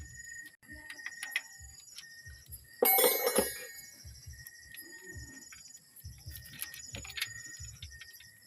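A brief, loud metallic clatter of tools or metal engine parts being handled, about three seconds in, with light knocks around it. Birds chirp over it.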